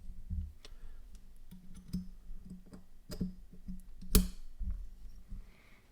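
Small clicks and taps of a Penguin Plus folding knife's blade and handle parts being handled and fitted back together during reassembly, with one sharper click about four seconds in.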